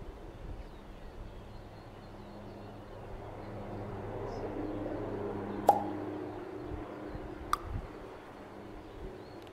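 Quiet outdoor ambience with a low steady hum and two sharp clicks, the first about halfway through and the second about two seconds later.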